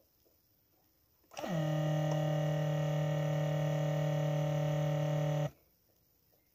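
Car alarm sounding one steady, buzzy tone that slides briefly downward as it starts, holds for about four seconds and cuts off sharply. A single sharp click comes right at the start.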